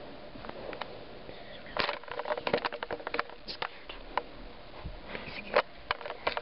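Close rustling and irregular soft clicks and knocks of movement and handling, starting about two seconds in, over a faint steady hiss.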